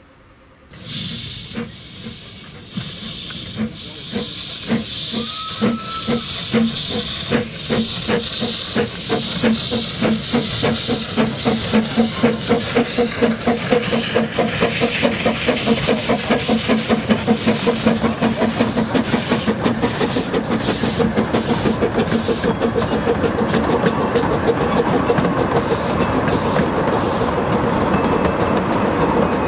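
Two narrow-gauge saddle-tank steam locomotives double-heading a train past: steam hissing, one short whistle toot a few seconds in, then a run of chuffing exhaust beats that come thicker and faster. Near the end the coaches' wheels clatter over the rail joints.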